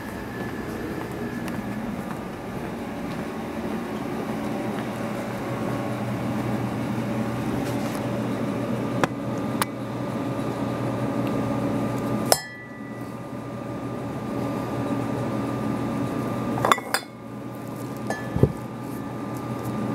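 A steady hair-dryer-like whooshing hum that drops off abruptly about two-thirds of the way through, with glass laboratory bottles clinking and knocking several times, the clearest near the end as a bottle is picked up.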